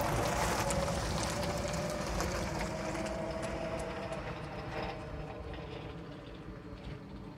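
JAC N55 electric delivery truck's artificial pedestrian warning sound, a steady synthetic tone that the truck generates below 25 km/h, with tyre noise on the road, both fading as the truck drives away.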